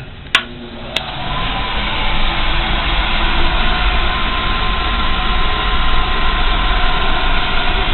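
A toggle switch clicks on, a second click follows, and a Ray oil burner's electric motor and blower spin up over about a second, then run steadily with a deep hum and a rushing fan sound. This is the oil burner starting up and firing an old low-pressure steam heating boiler.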